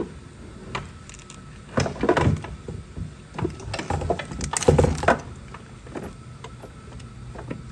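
Irregular knocks and clatter of metal parts and tools being handled on a workbench, loudest in a cluster of knocks about four to five seconds in.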